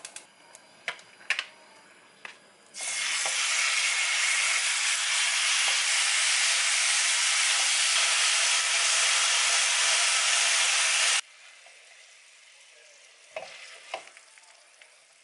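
Gochujang-marinated pork sizzling loudly as it fries in a hot wok. The sizzle starts about three seconds in and cuts off abruptly a little after the middle, with a few light clicks before and after it.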